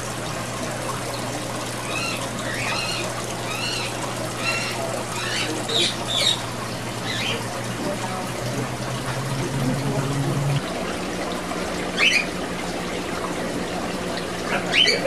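Steady trickling and bubbling of aquarium water over a low hum. A caged bird chirps a quick run of repeated calls a couple of seconds in, and calls again twice later.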